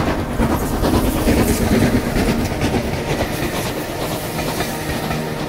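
Southern Railway S15 class steam locomotive No. 825 and its coaches passing close by: a loud rumbling roar with steam hissing and many short knocks from the wheels on the rails, loudest about a second or two in and easing slightly as the coaches go by.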